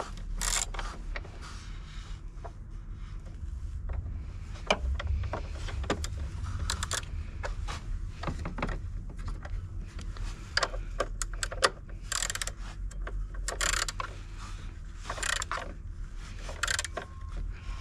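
Hand ratchet wrench clicking in runs of quick strokes as it turns a nut at a car battery, with pauses between the runs.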